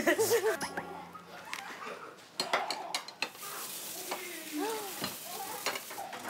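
Marinated beef (bulgogi) and vegetables sizzling in a frying pan as they are stir-fried, with a run of sharp clicks and scrapes of a utensil against the pan about halfway through. Brief wavering tones sound over it near the start and again about three-quarters of the way in.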